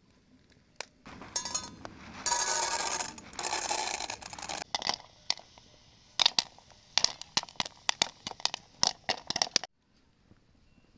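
Popcorn kernels rattling and scraping against a metal pot, first in a continuous rattle lasting a few seconds, then as a string of separate sharp clicks that stops abruptly.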